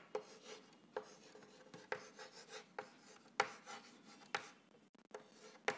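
Chalk writing on a chalkboard: short scratchy strokes, each starting with a light tap of the chalk, coming every second or so as letters are written.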